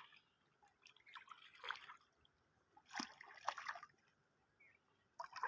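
Faint water sounds: three short bouts of trickling and splashing, each about a second long.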